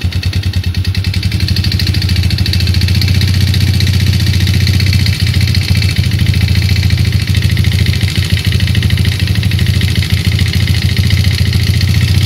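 A 2008 Yamaha Jupiter Z's single-cylinder four-stroke engine running steadily with a fast, even knocking clatter, a little louder after the first couple of seconds. The knock is what the owner puts down to a worn, loose connecting rod (big-end play).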